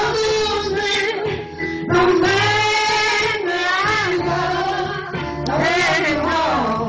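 A female voice singing long held notes with vibrato and sliding pitch, over instrumental backing.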